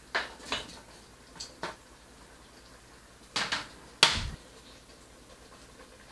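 A kitchen knife scraping chopped tomatoes off a plastic chopping board, in several short clicks and scrapes, then a loud knock on the worktop about four seconds in, the heaviest sound.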